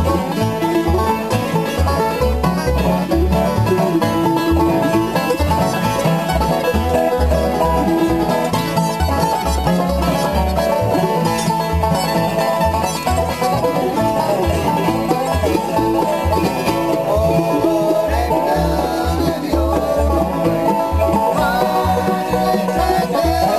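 Acoustic bluegrass jam band playing an instrumental passage on mandolin and guitars, with a steady low bass beat.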